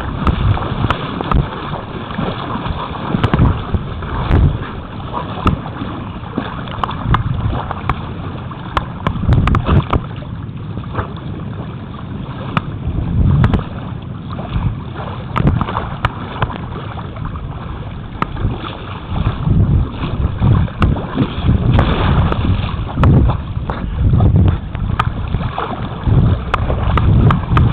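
Footsteps wading through shallow water, with irregular sloshes and splashes, and wind buffeting the microphone.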